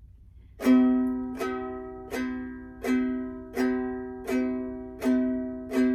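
Ukulele strummed as a song intro: the same chord struck about every three-quarters of a second, eight strums in all, starting a little over half a second in, each ringing and fading before the next.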